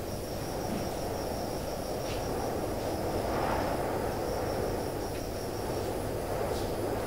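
Steady low rumble of background ambience with a steady high insect trill, like crickets, over it, and a few faint soft clicks.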